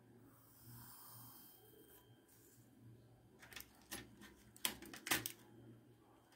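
Pencil scratching along a plastic ruler on paper as a line is drawn, soft and brief. Later comes a run of sharp taps and clicks, the loudest two about half a second apart.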